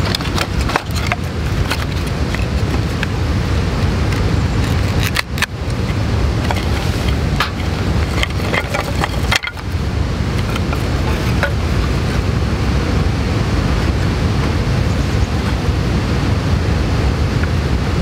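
A knife splitting and shaving thin wooden kindling sticks, heard as scattered sharp clicks and cracks over a loud, steady low rumble of outdoor background noise.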